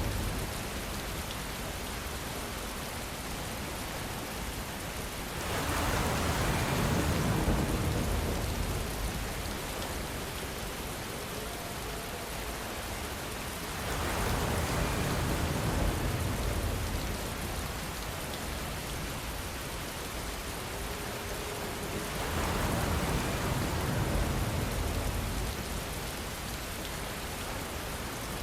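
Steady rainfall, a dense even hiss of drops. It swells louder, with more low rumble, three times, about every eight seconds.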